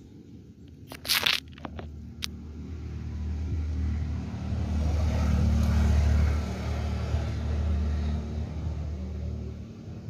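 A passing motor vehicle: a low engine rumble swells over a few seconds and then fades. About a second in, a short, loud crackle with a few clicks.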